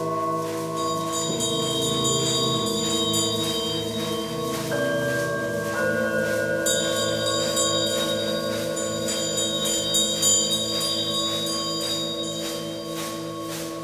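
Several metal singing bowls ringing together in long, overlapping sustained tones, some slowly pulsing. Fresh strikes add new, higher ringing tones a few times: about one second in, around five seconds and near seven seconds.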